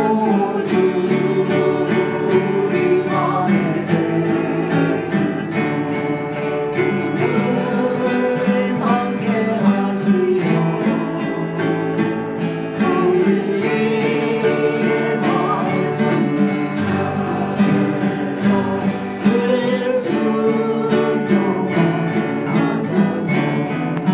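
Acoustic guitar and harp playing a gospel praise song, a steady stream of plucked notes.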